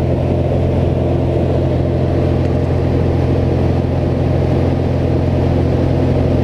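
Light aircraft's engine and propeller drone steadily, heard from inside the cabin along with the rush of air.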